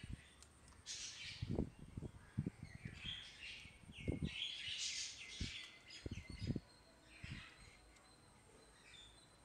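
A plastic pan-tilt bracket and micro servo being handled and pressed together: scattered light knocks and clicks, dying away after about seven seconds. Bird-like chirps sound in the background through the middle.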